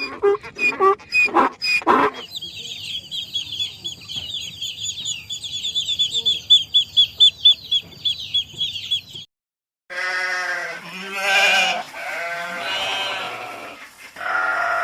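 A fast run of high, evenly repeated chirping calls for about seven seconds, after short pitched calls. After a brief gap, goats bleat in long, wavering calls.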